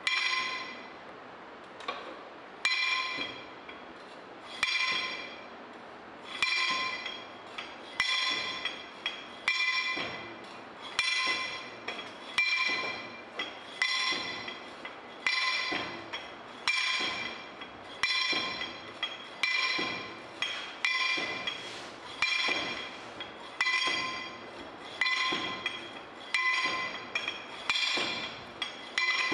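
A 2.6 kg soil-compaction rammer drops again and again inside its steel guide tube onto moist soil in a permeameter mould, about one blow every one and a half seconds. Each blow gives a sharp clink that sets the metal tube ringing briefly. The soil is being compacted in layers, 25 blows to a layer.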